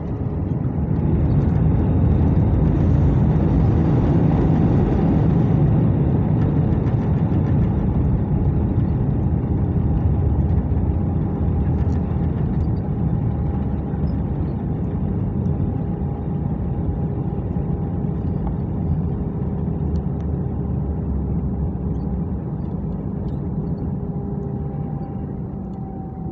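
Cabin noise of an Airbus A319 rolling out on the runway after landing: a loud steady roar of the engines and wheels with a faint whine above it, slowly getting quieter as the airliner slows.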